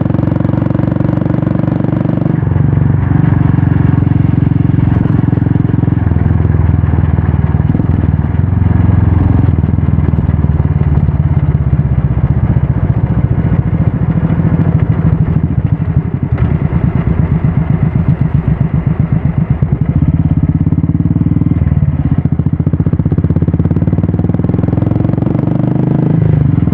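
Royal Enfield Classic 350 single-cylinder engine running through a Red Rooster aftermarket exhaust on the move; the engine note shifts in steps several times, and around the middle it drops to a slow run of separate exhaust beats before picking up again.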